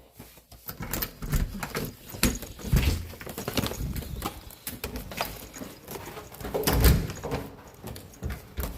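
Scattered clicks and knocks with dull thumps, like handling and door or footstep noise. The heaviest thump comes about seven seconds in.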